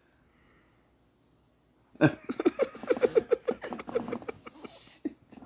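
Near silence, then about two seconds in a person bursts out laughing: a quick run of repeated laughs that tapers off.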